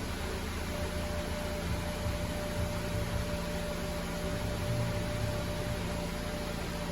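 Steady mechanical hum over an even hiss, with a faint constant tone and an uneven low rumble.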